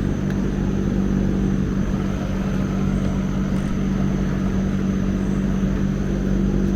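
A steady mechanical hum at one constant pitch, like a motor or engine running, with no change in speed.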